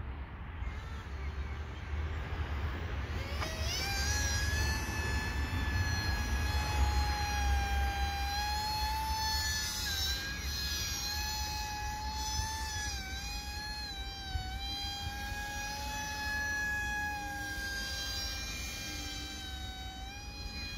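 Motor and propeller of a radio-controlled paramotor, whining up sharply in pitch as it is throttled up about three seconds in, then running at a steady high pitch with small dips as it flies. Low wind rumble on the microphone underneath.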